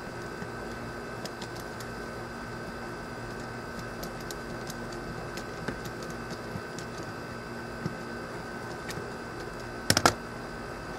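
Small clicks and ticks of a screw-terminal DC plug being wired by hand, as a wire is fitted and screwed down, over a steady hum. A sharp cluster of clicks comes about ten seconds in as the plug is put together.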